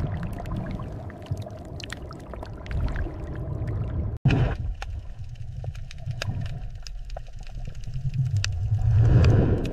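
Underwater sound bed: a deep rumble with bubbling, gurgling water and scattered small clicks. It breaks off abruptly about four seconds in and resumes as a calmer underwater wash that swells again near the end.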